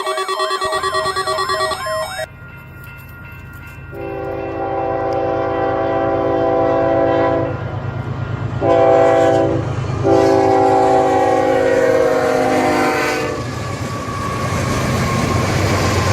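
A repeating electronic warble cuts off about two seconds in. Then, over a steady low rumble, a horn sounds a chord of several notes in three blasts: long, short, long.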